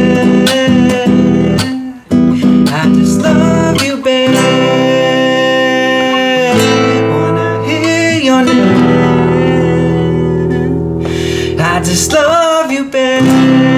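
Acoustic guitar playing chords while a man sings over it in long held notes.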